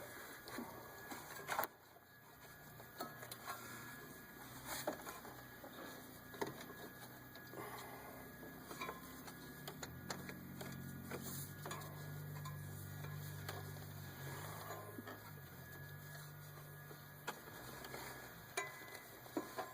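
Hand tools working on the engine's belt pulleys: scattered clicks and light metallic knocks. A low steady hum joins in about halfway through.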